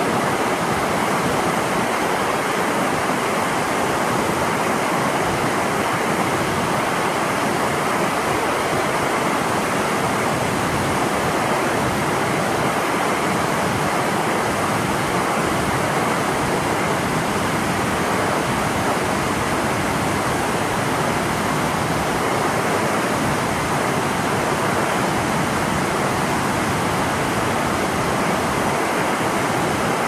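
Waterfall pouring over a low dam into river rapids: a steady, unbroken rush of water.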